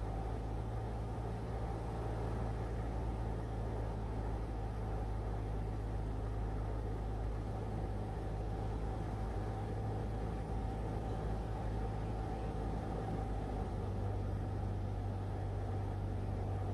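Cessna 172's piston engine and propeller droning steadily in the cabin at reduced power on final approach.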